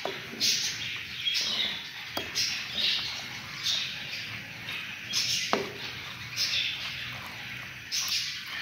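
Wooden spoon stirring and scraping black chickpeas frying in ghee and masala in a clay pot, a hissing scrape with each stroke about once a second, with a few sharp knocks of the spoon against the pot.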